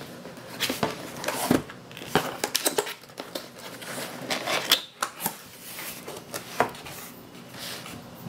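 Cardboard keyboard box being opened by hand: irregular taps, knocks and scrapes of cardboard with short rustles of packaging.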